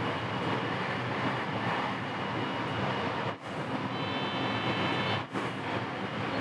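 Rapid Marine Liner electric train running on the line, heard from just behind the driver's cab: a steady rumble of wheels and running gear, with a faint high whine of several tones about four seconds in. The sound drops out briefly twice.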